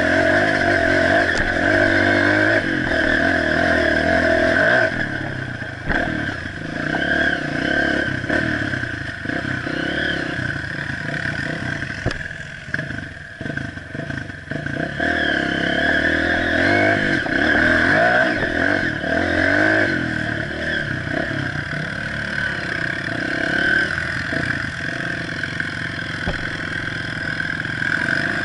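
Honda CRF 230F dirt bike's air-cooled single-cylinder four-stroke engine running under the rider's throttle, its pitch rising and falling as it revs. Knocks and rattles come through as the bike rides over rocks, and the engine eases off for a few seconds about halfway through before picking up again.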